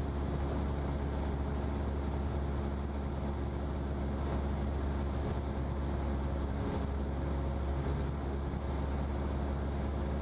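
Steady drone of a Cessna's single piston engine and propeller in flight, heard inside the cockpit as a constant low hum with an even, unchanging pitch.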